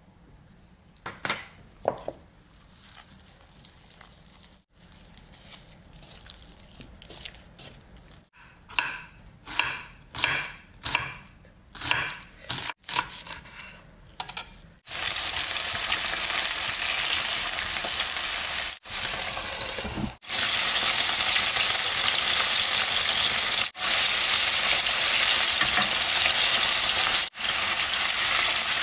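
Light kitchen handling for about the first half: scattered clicks and a run of short scraping strokes. Then, about halfway in, food goes into hot oil in a frying pan and sizzles loudly and steadily, broken by a few brief cuts.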